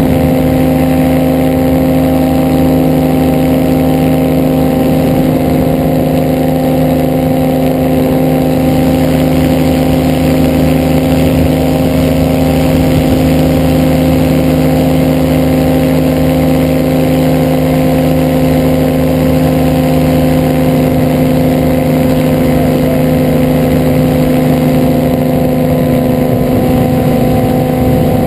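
Ultralight trike's engine and propeller running at a steady cruise in flight: a constant, unchanging drone.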